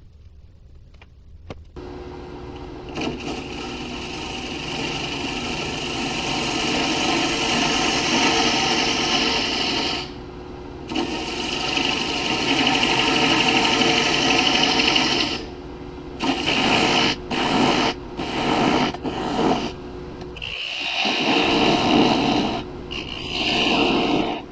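Wood lathe, a Powermatic, spinning a walnut bowl while a handheld rotary sanding pad is pressed against its face: a steady hiss of sanding over a motor whine. The sanding breaks off briefly about ten and fifteen seconds in, then goes in several short stop-start spells before dying away near the end.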